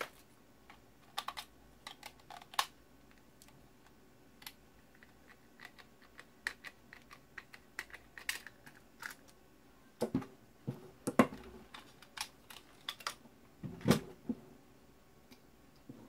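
Light clicks and taps of hard plastic parts and a screwdriver being handled while a Dyson SV10 cordless vacuum is taken apart, scattered irregularly, with a few heavier knocks about ten, eleven and fourteen seconds in.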